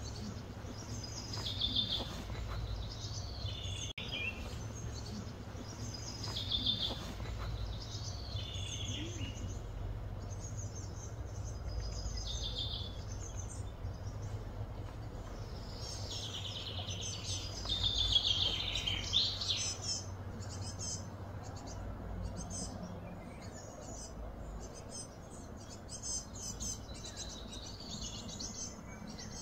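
Wild birds calling in repeated short, high chirping phrases over a low steady outdoor hum. The birdsong is loudest a little past halfway, and quicker, thinner chirps go on through the last third.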